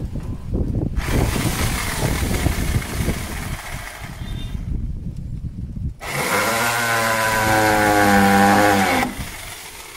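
Cordless drill driving screws into the coop's wooden frame, running twice: first from about a second in for nearly four seconds, then a louder, steady motor whine for about three seconds, stopping near the end.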